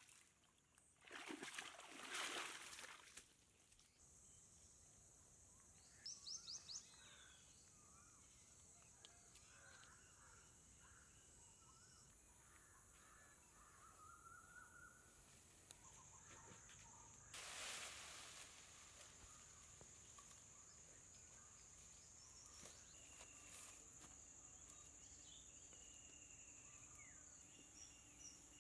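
Faint tropical outdoor ambience: a steady high insect drone with scattered bird calls, including a quick run of four high chirps. About a second in, a couple of seconds of louder splashing as feet step through shallow stream water, and a short rustling burst about two-thirds of the way through.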